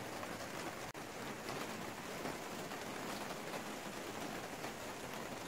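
Rain falling on the plastic panels of a greenhouse, heard from inside as a steady, even hiss.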